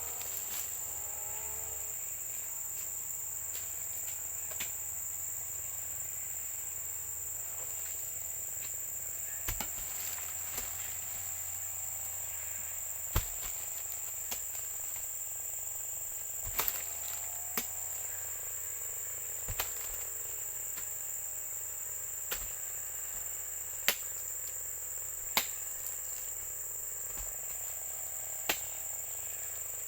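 Steady high-pitched drone of insects in the plantation, with a dozen or so sharp irregular clicks or knocks over it.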